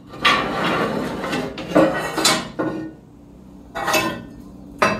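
Sheet-metal offcuts clattering and scraping against each other and the bandsaw table as they are handled, in about five separate bursts.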